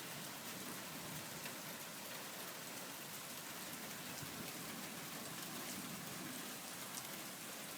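Heavy rain mixed with hail, falling in a steady hiss.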